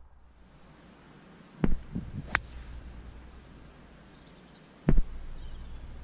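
Golf ball struck with a 5-wood off the fairway: one sharp click about two seconds in, with dull thumps just before it and again near the end.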